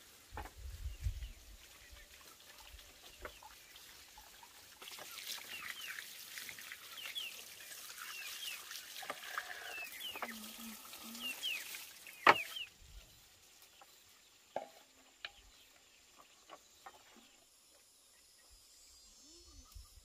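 Poultry calling: a run of short high chirps over a steady rushing noise that starts about five seconds in and cuts off abruptly at about twelve and a half seconds, with a few lower calls around ten seconds. A single sharp knock, the loudest sound, comes just before the rushing stops.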